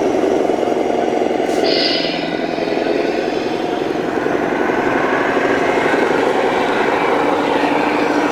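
A 1/14-scale radio-controlled construction model running: a steady, fast-pulsing motor drone, with a single sharp click about a second and a half in.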